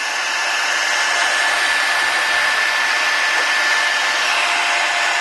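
Handheld hot-air blower running steadily, a constant rushing hiss with a faint steady whine. It is heating the adhesive around an iPhone 5 screen's home button and connectors to loosen them.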